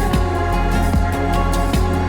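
Background music with a steady beat and sustained synthesized chords.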